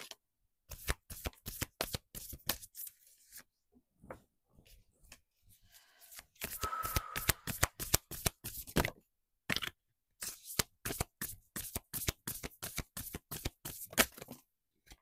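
A deck of oracle cards being shuffled by hand: quick runs of soft card clicks in several bursts, with brief pauses between them.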